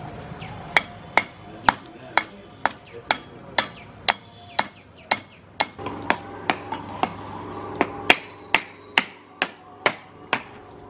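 A flat metal blade striking a charred, fire-roasted whole coconut in a steady run of sharp knocks, about two a second, to crack the shell open.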